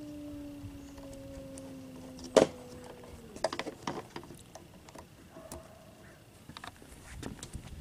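Solar panel cable connectors being handled: scattered small clicks and rustling, with one sharp snap about two and a half seconds in. A steady hum, slowly falling in pitch, stops about three seconds in.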